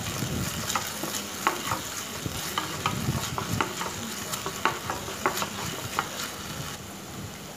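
Sliced onions frying in oil in a nonstick kadai, sizzling steadily, while a spatula stirs them with irregular scrapes and taps against the pan.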